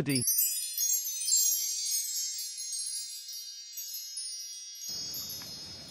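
Chime sound effect: a sudden shimmer of many high, tinkling tones like a wind chime, ringing on and slowly fading away.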